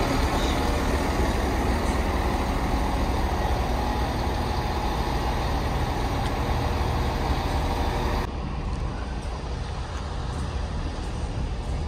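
Transport for Wales diesel multiple unit running alongside the platform, a steady engine drone. About eight seconds in the sound cuts abruptly to a quieter, steady station background.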